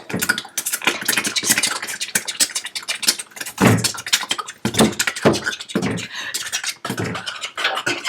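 A person making mouth sound effects in a beatboxing style: fast clicks and hissing strokes, with a few deep thumps from about the middle on.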